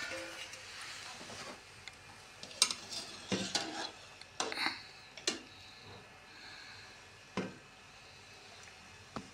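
A metal ladle knocking and scraping against the inside of a metal cooking pot as boiled amla (Indian gooseberries) are scooped out of their water. It makes a string of irregular clinks, bunched in the middle with a couple of single knocks near the end.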